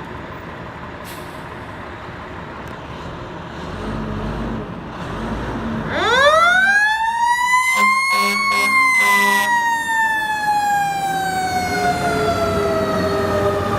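Fire truck's Federal Q mechanical siren winding up from a low growl to a high wail about six seconds in, then slowly coasting down in pitch. A quick series of short air horn blasts sounds as the siren peaks, over truck engine and road noise.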